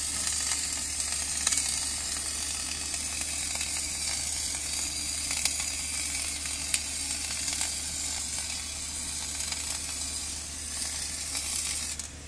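MIG welding arc from a Retop MIG-500 DC inverter welder, a steady sizzle with a few sharp pops, stopping just before the end.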